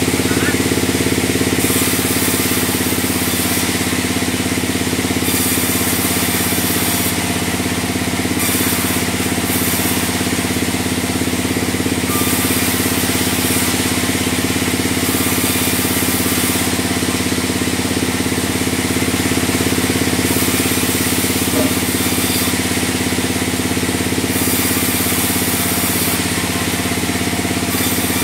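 Sawmill band saw running steadily with a constant low engine-like drone. A high hiss comes and goes every few seconds, lasting a second or two each time.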